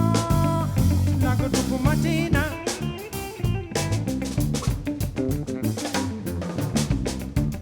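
Live jazz-funk improvisation by a bass, electric guitar and drum kit trio: busy snare, rimshot and cymbal hits over a bass line. An instrument holds a high note briefly, then plays quick, wavering notes that bend in pitch, most likely the guitar.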